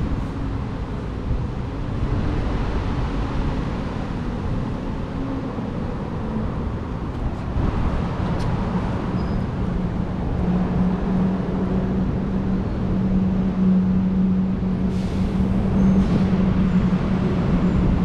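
Steady low rumble of road traffic, with a steady engine-like hum that sets in about halfway through and grows louder.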